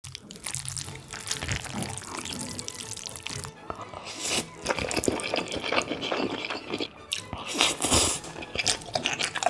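Close-miked wet eating sounds: chopsticks lifting noodles and raw beef, then slurping and chewing cold spicy noodles with a run of irregular wet clicks. The loudest slurp comes near the end.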